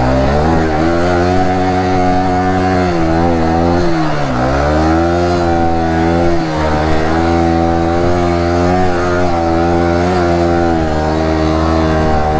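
Yamaha R15 V3's single-cylinder engine running at a steady pace while riding, its revs dipping briefly about four seconds in and climbing back.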